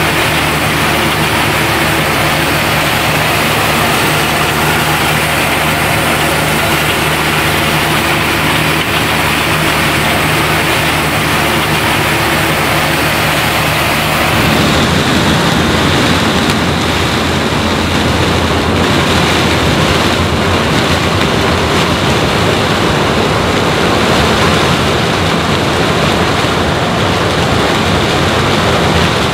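Heavy diesel farm machinery running steadily at corn harvest, with a steady engine tone. About halfway through the sound changes abruptly to a rougher, noisier one with less hiss.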